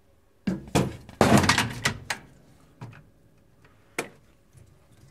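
A bowling ball knocking and thudding through a Brunswick GS-X ball accelerator: a run of heavy knocks, densest about a second in, then single knocks a little later and again near the end.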